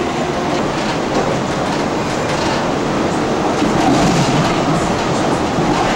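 Electric light-rail trolley car running along the track: a steady rumble of wheels on rail with clicking over the rail joints, swelling a little about four seconds in.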